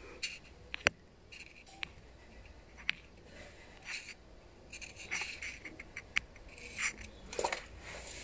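Quiet room with a few faint, sharp clicks and soft rustles, like small handling noises close to a phone microphone.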